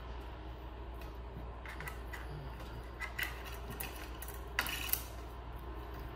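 Armature wire being bent by hand and wrapped around a metal pipe armature post, giving a few light metallic clicks and scrapes. The loudest is a pair of clicks about four and a half seconds in.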